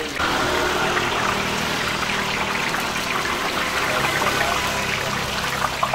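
Cumin murukku strands deep-frying in a wide pan of hot oil, a steady sizzle of bubbling oil.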